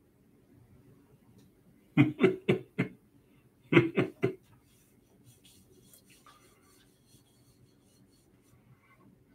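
A person's voice in two short bouts of quick, clipped vocal bursts, four in a row and then three, about four a second.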